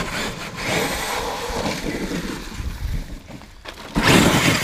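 Traxxas X-Maxx electric RC monster truck driving on gravel, its tyres crunching over the stones as its motor runs. The sound jumps louder about four seconds in as the truck comes close.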